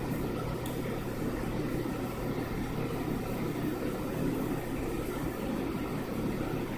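Steady low machine hum with a rumble underneath, unchanging throughout.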